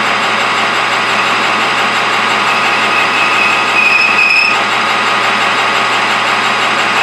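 Metal lathe running steadily while turning a stainless steel shaft. A high whine, typical of a tool cutting stainless, comes in about three seconds in and stops a second or so later.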